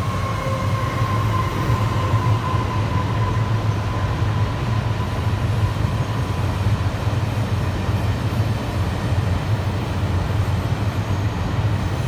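River water rushing over a shallow rocky riffle, a steady low rumbling rush with no rise or fall. A faint thin whine sits over it in the first few seconds and fades out.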